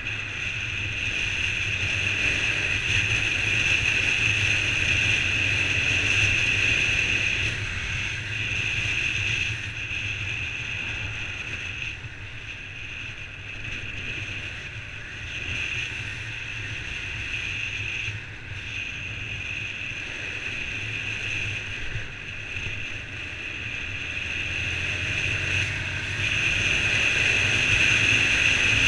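Wind rushing over a motorcycle-mounted camera's microphone with the Honda CBR125's single-cylinder engine running underneath as the bike rides along. The noise swells and eases with speed, growing louder over the last few seconds.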